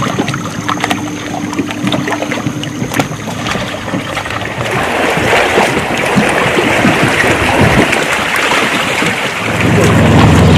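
Wind and water noise around a fishing kayak, with scattered knocks and clicks in the first few seconds. The noise rises about halfway through, and a low steady hum comes in near the end.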